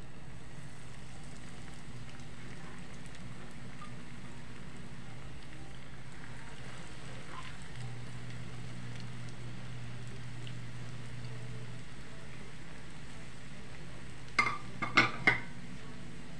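Breaded bread rolls deep-frying in hot oil in a pot, a steady sizzle over a low hum. About fourteen seconds in, a quick run of four sharp knocks stands out as the loudest sound.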